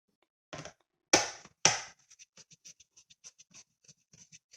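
Two sharp knocks of a screwdriver and screws against the laptop's hard-drive bay, then a fast run of light clicking ticks, about five a second, as a screwdriver turns the screws down.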